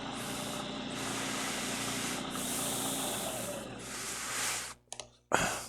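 Vertical milling machine running, its end mill cutting along the side of an aluminium block with a harsh hissing scrape that comes in several stretches. The cutting noise stops suddenly a little before the end, followed by a couple of clicks and one short burst of noise.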